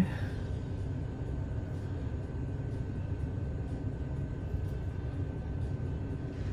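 Steady low background rumble with a faint, steady high whine over it.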